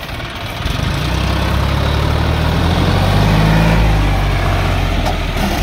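John Deere 5036 D tractor's three-cylinder diesel engine running under load as it pulls a trailer heaped with soil, getting louder about a second in and loudest just past the middle as it drives close by.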